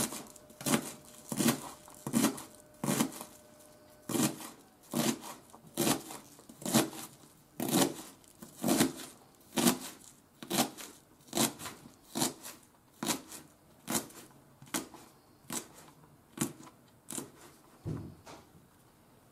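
Kitchen knife chopping cabbage on a cutting board: slow, even strokes, a little more than one a second, stopping shortly before the end.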